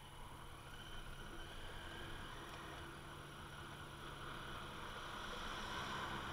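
Honda Africa Twin motorcycle riding slowly over a rough dirt track: a steady low engine hum with road and wind noise, growing somewhat louder toward the end.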